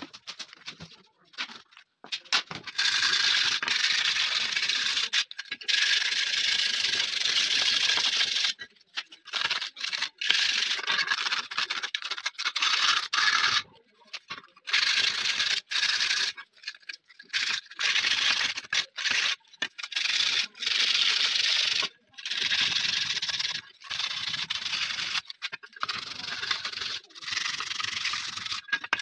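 AKM rifle magazine being hand-sanded, giving a dry scraping hiss. One long run of strokes lasts several seconds, followed by shorter strokes of about a second each with brief pauses between them.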